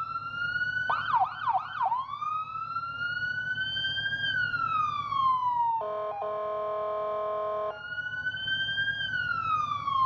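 The electronic siren of a 1985 Sutphen pumper/tender fire truck being tested. About a second in it gives a short run of fast yelp sweeps, then settles into a slow wail that rises and falls. About six seconds in, a steady horn blast sounds for nearly two seconds, and then the wail rises and falls again. A low pulsing engine idle runs underneath.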